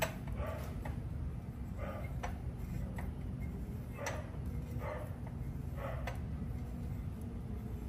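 Sparse, irregular metallic clicks, roughly one a second, from a T-handle socket wrench being worked on a stiff, threadlocked motorcycle frame bolt, over a steady low hum.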